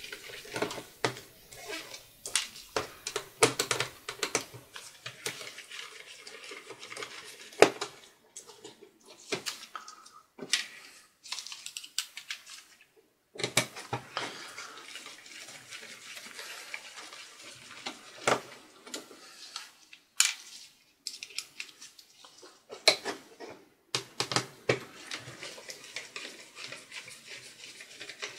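Small screwdriver working the screws out of a ThinkPad X230's metal touchpad bracket: irregular light metallic clicks, taps and scrapes, with a few short pauses.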